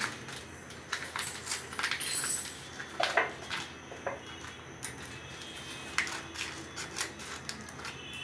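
Kitchen handling sounds as a cardboard box of cornflour is opened and tipped over a ceramic bowl: scattered light taps and clinks, with a short rustle about two seconds in.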